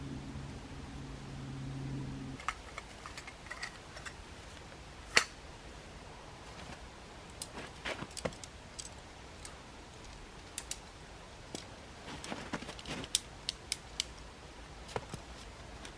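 A low steady hum cuts off about two seconds in, followed by scattered sharp clicks and light knocks, with one loud click about five seconds in.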